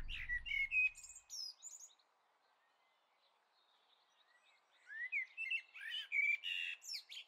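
Birds chirping and calling in short, quick high notes with sliding pitch. There is a flurry in the first second or so, a gap of near silence, then a second run of calls from about five seconds in.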